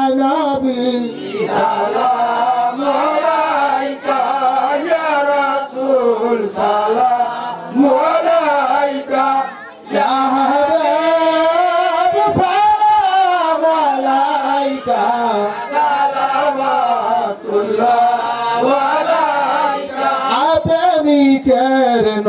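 Male voice chanting a milad-kiyam devotional salutation to the Prophet into a microphone, in long, wavering held notes with only brief breaths between phrases.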